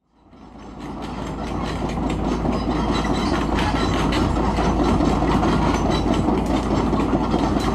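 Heavy mechanical rumble with a dense, rapid clatter, fading in over the first second and then running steadily.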